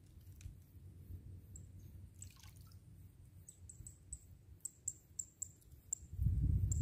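Quiet lake water lapping with light drips and a run of faint high ticks. About six seconds in, a louder low rumble of wind on the microphone sets in.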